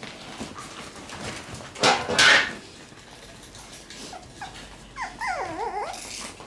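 Shiba Inu puppies scuffling around fabric play tunnels, with a loud noisy burst of scrambling about two seconds in. Near the end a puppy gives one wavering whine that falls in pitch.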